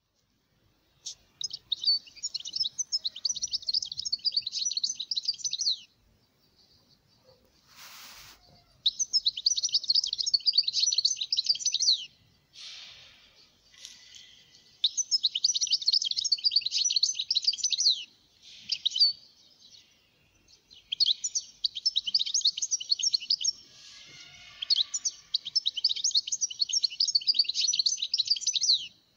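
European goldfinch singing: rapid, high twittering phrases in five long bursts with short pauses between them, and a single click about eight seconds in.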